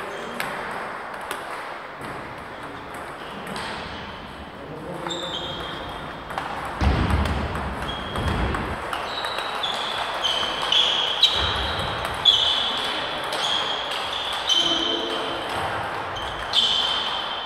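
Table tennis ball clicking off bats and table in a rally, the hits coming about twice a second from about five seconds in, each with a short bright ping, over faint voices and balls from other tables in the sports hall.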